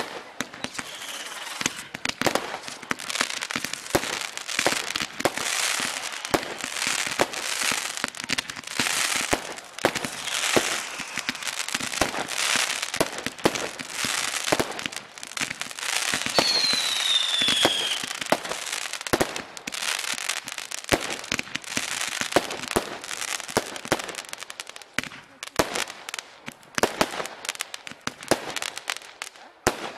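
Consumer firework cakes firing shot after shot, giving a dense run of sharp cracks and bangs over continuous hissing and crackling. A falling whistle cuts through about sixteen seconds in.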